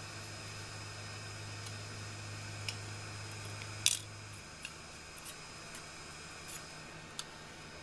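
Scattered light clicks and taps of small tools being handled at the workbench, over a steady background hum. The loudest clack comes about four seconds in, and a low hum drops out soon after.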